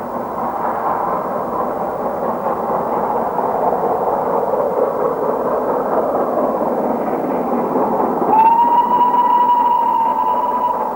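Great Western steam locomotive running with a steady rushing noise, then about eight seconds in it sounds one long whistle, lasting over two seconds, rising slightly at its start.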